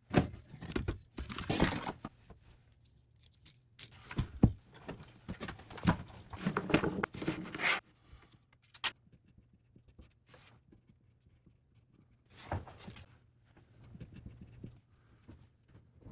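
Parts and tools being handled on a workbench: irregular knocks, clinks and rustling scrapes, busiest in the first eight seconds and sparser after that.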